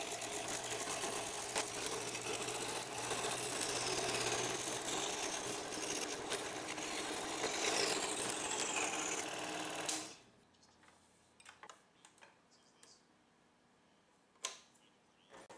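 Craftsman scroll saw running, its blade cutting through 3/4-inch cherry with a steady, fast buzz. It cuts off about ten seconds in, leaving near silence with a few faint clicks.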